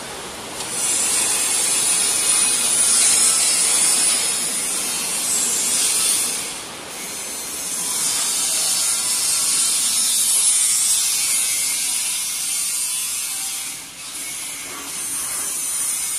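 Socket ratchet wrench clicking as it tightens the nut on a steel roller's shaft end, in three long runs with short breaks about six and a half and fourteen seconds in.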